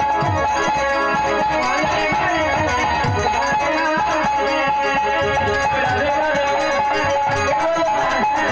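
Devotional kirtan music: a man's voice singing over an electronic keyboard holding sustained chords, with regular strokes of a hand drum and a jingling rattle-like percussion keeping the beat.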